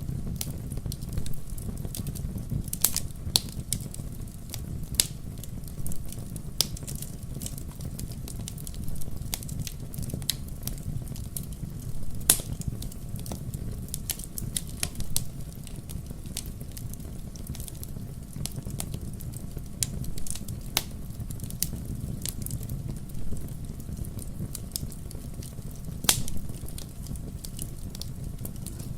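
Wood fire burning in a fireplace: logs crackling with irregular sharp pops over a steady low rumble of the flames. A few louder pops stand out, about three seconds in, near the middle and near the end.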